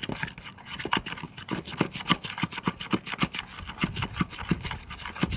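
Homemade glue slime being stirred and squished in a bowl: a quick, uneven run of wet sticky clicks and squelches, several a second.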